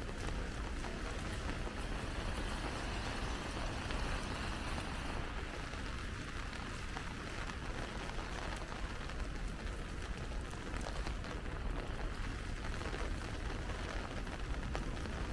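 Steady rain falling on a city street, a constant hiss with fine patter, over a low steady rumble.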